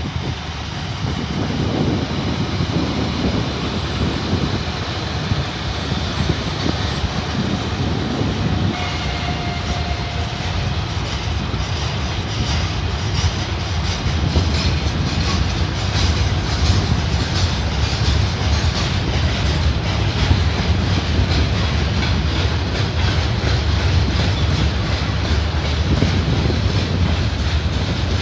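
Passenger train rolling past, a steady rumble with wheels clicking over the rail joints, getting a little louder and busier about halfway through.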